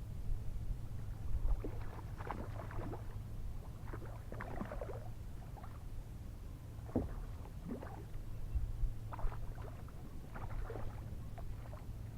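Water splashing and dripping beside a kayak in irregular bursts every second or two, over a steady low hum.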